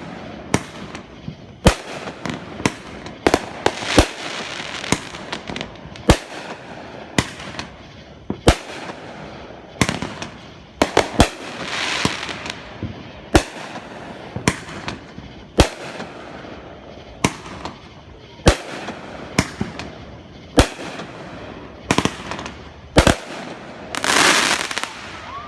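Fireworks going off: a string of sharp bangs at irregular intervals, about one a second. A few longer hissing, crackling bursts fall in between, the loudest near the end.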